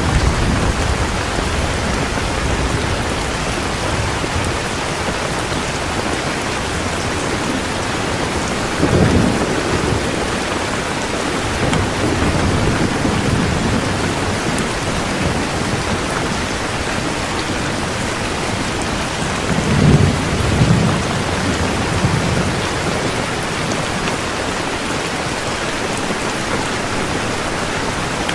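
Heavy rain pouring steadily in a thunderstorm, with low thunder rumbling twice, about a third of the way in and again about two thirds in.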